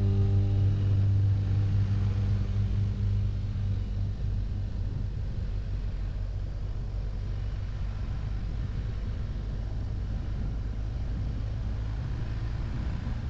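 BMW R1250 GS boxer-twin engine running steadily on the move, heard as a low rumble with wind and road noise.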